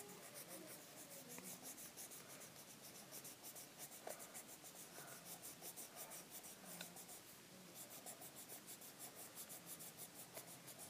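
Coloured pencil scratching on a colouring-pad page in rapid, even back-and-forth shading strokes, several a second, faint, with a short pause a little after two-thirds of the way through.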